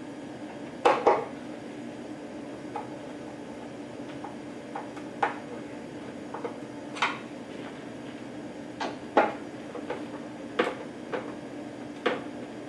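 Scattered sharp clicks and knocks of a screwdriver and hands against the plastic housing of a Hach TU5 turbidimeter while its mounting screws are tightened, the loudest a close pair about a second in. A steady low hum runs underneath.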